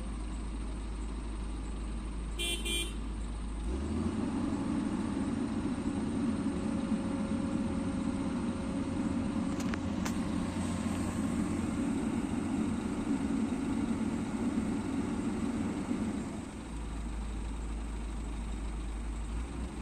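Komatsu PC200 amphibious excavator's diesel engine idling, with a short beep about two and a half seconds in. About four seconds in the engine rises to a heavier, louder note under hydraulic load as the boom lifts, and it settles back to idle about sixteen seconds in.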